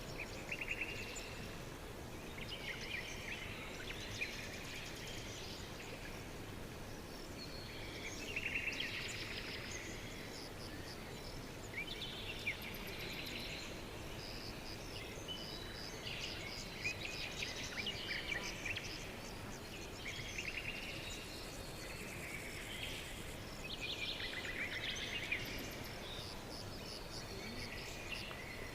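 Songbirds singing: short trilled and chirping phrases every few seconds, over a steady background hiss.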